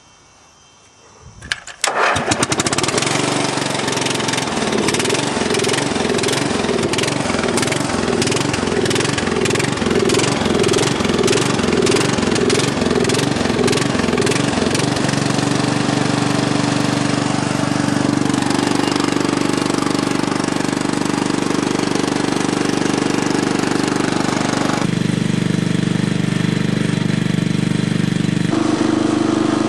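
Quiet for under two seconds, then the 10 hp single-cylinder Briggs & Stratton engine of a 1980 Montgomery Ward lawn tractor starts, after years of storage, and runs through a muffler with a hole in it. It runs unevenly at first and settles into steady running about 15 seconds in, with a shift in its sound near the end as the tractor moves off.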